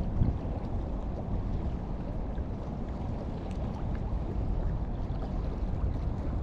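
Steady wind noise on the microphone, with small waves lapping and splashing against the rocks at the foot of a seawall.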